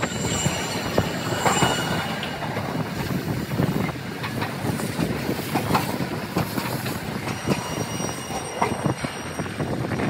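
Hiroshima Electric Railway 3900-series articulated streetcar running past on curving street track, its wheels clicking rapidly over rail joints and points, with thin squeals from the wheels on the curve. The recording is sped up to double speed.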